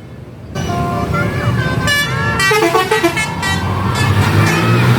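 Tour bus's multi-tone basuri musical horn playing a telolet tune in quick stepped notes, starting about half a second in, with voices shouting over it. The bus engine's low hum grows louder near the end.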